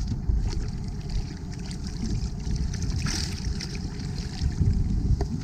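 Wind rumbling on the microphone aboard a small boat, with water sloshing and a few light knocks.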